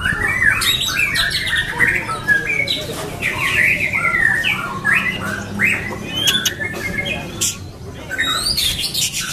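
White-rumped shama (murai batu) singing: a fast, unbroken run of short, varied whistled phrases that keep changing in pitch, with a few sharp clicks among them.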